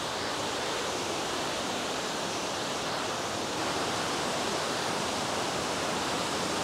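Kynrem Falls' water crashing and cascading down over rock steps: a steady, even rush, a little louder about halfway through.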